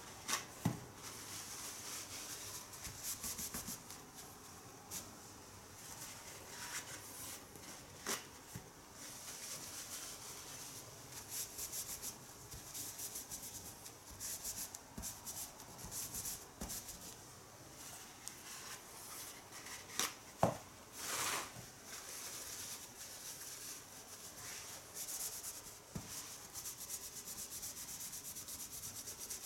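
Toilet paper torn from a roll and crumpled, and tissue rubbed and scrubbed against a tatami mat: short scratchy rustles on and off, with a few sharp knocks.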